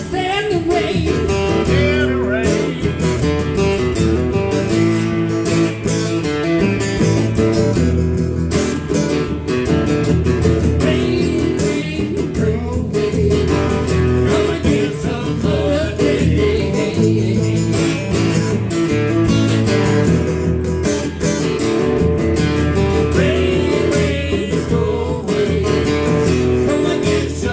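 Two acoustic guitars playing together live, strummed, in an instrumental passage of a song.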